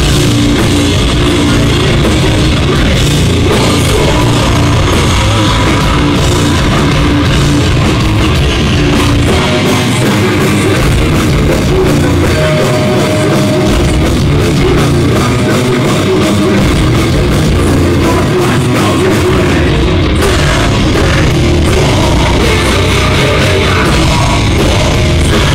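Live heavy metal band playing loud, with electric guitar, bass guitar and drum kit.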